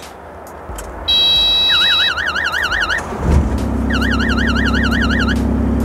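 Kubota KX019-4 mini excavator being started with the key: a steady electronic beep and a warbling warning alarm sound from the cab. About three seconds in, the diesel engine starts and settles into a steady idle while the warbling alarm sounds again.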